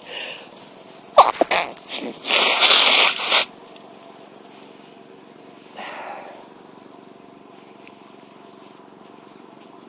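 A woman sneezing in a sneezing fit, which she puts down to her cold or a mild tree-pollen allergy. A few sharp catches of breath about a second in build to one loud, explosive sneeze lasting about a second. A fainter breath follows a few seconds later.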